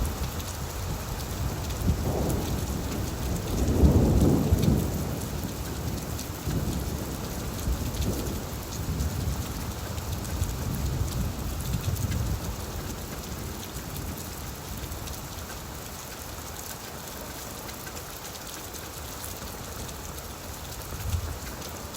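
Steady rain falling on leaves, with a low roll of thunder that swells to its loudest about four seconds in and then rumbles on, fading away over the next ten seconds or so.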